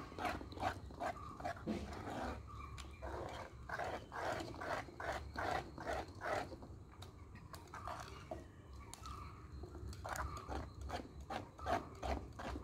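Metal spoon stirring and scraping a thick, wet paste of cooked sago pearls in a metal bowl, in quick rhythmic strokes with brief pauses.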